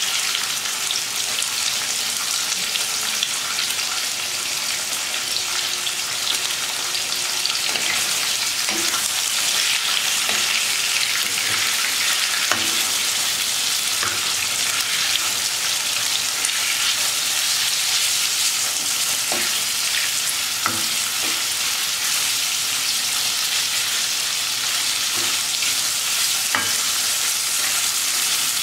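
Beef liver pieces sizzling steadily as they fry in a pan, stirred with a wooden spatula that now and then knocks or scrapes against the pan.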